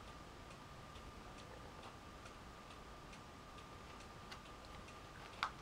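Faint, regular ticking, about two ticks a second, over a faint steady high-pitched hum; one slightly sharper tick near the end.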